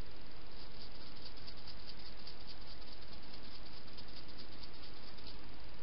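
A hedgehog crunching dry food: a fast, steady run of sharp clicks that starts about half a second in and stops about half a second before the end, over steady hiss.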